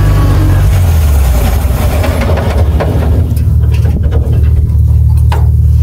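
1948 Bedford truck's six-cylinder engine running, heard from inside the cab as a loud, steady low hum whose note shifts about a second in.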